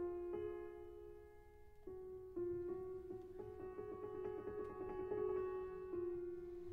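Solo piano music: a slow melody of single held notes, dipping quieter about a second in.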